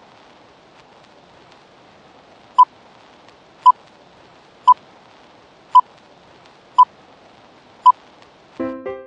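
Countdown-leader beeps: six short, loud beeps at one steady pitch, about a second apart, over a steady hiss with faint crackles like old film. Piano music starts near the end.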